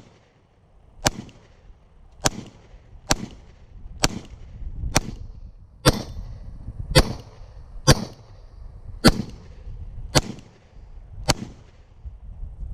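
Handgun fired at a steady pace, about eleven shots at roughly one a second, each a sharp crack with a short echo.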